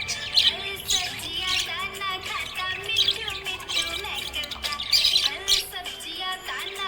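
Budgerigars chirping and warbling nonstop: a dense chatter of short, overlapping chirps and quick up-and-down whistles with no break.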